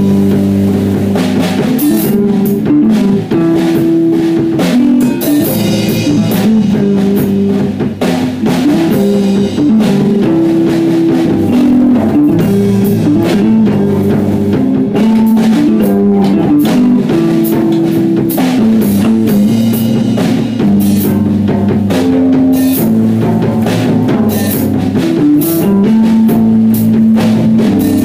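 Instrumental rock played live and loud by a small band: electric bass, electric guitar holding long notes, and a drum kit with frequent cymbal crashes.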